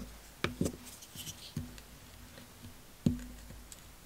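Handling sounds of a folding pocketknife and a dry twig on a cutting mat: a few sharp clicks and knocks, the loudest about three seconds in.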